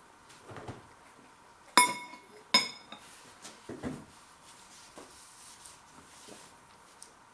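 Cutlery clinking against a dish twice, under a second apart, each strike ringing briefly.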